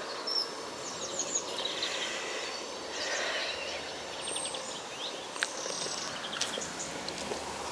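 Outdoor garden ambience: a steady background hush with small birds chirping briefly now and then, and one sharp click a little past halfway. No church bells are heard.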